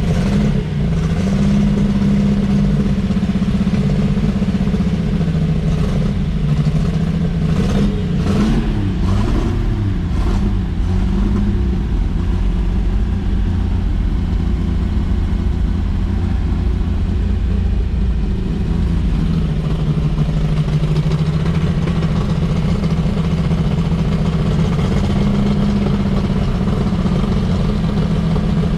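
1954 Chevrolet 3100's 235 inline-six engine running after years of sitting. Its speed rises and falls a few times about six to eleven seconds in, then it settles to a steady idle.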